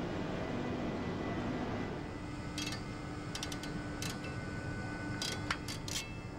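Metal parts clinking: short sharp clicks, a few in quick clusters, starting about two and a half seconds in, as a dry gas seal cartridge is worked along steel guide rods onto a centrifugal compressor shaft, over steady workshop noise with a faint hum.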